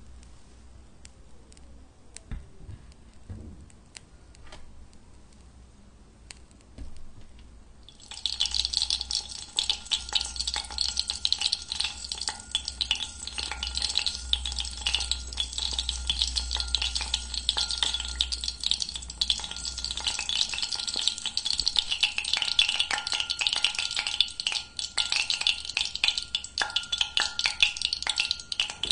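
Water heating in a glass beaker on wire gauze over an alcohol lamp. After a few faint scattered ticks, a loud, dense crackling sizzle starts abruptly about eight seconds in and runs on: small bubbles are forming as the water heats toward the boil, with faint steady tones beneath.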